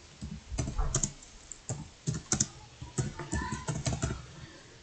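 Typing on a computer keyboard: an irregular run of keystroke clicks as a short phrase is typed.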